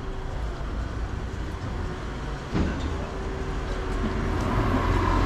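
Street ambience with a motor vehicle's engine running as a steady low rumble and hum, a sudden thump about two and a half seconds in, and the noise growing louder near the end.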